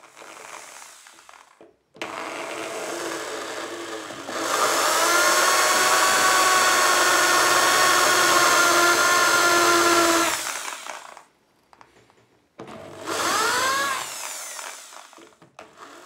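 Electric drill boring out the rivets of a small combination padlock. It runs for about nine seconds, getting louder and steadier once the bit bites into the metal, stops, then runs again briefly with a rising and falling whine.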